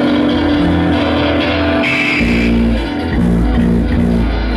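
Live band playing amplified rock music, with electric guitar and bass guitar to the fore.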